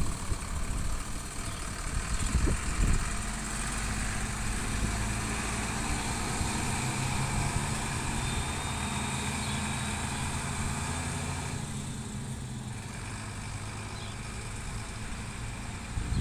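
A bus's diesel engine running steadily as the bus pulls away, its low drone slowly fading as it drives off. Wind buffets the microphone in the first few seconds.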